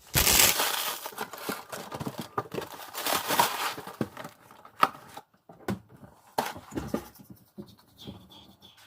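Crinkling and rustling of plastic packaging, loudest in the first second or so, followed by scattered small clicks and crinkles.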